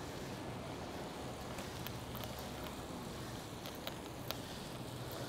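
Steady rush of wind and road noise from riding a bicycle on wet city streets, with a few short clicks in the middle.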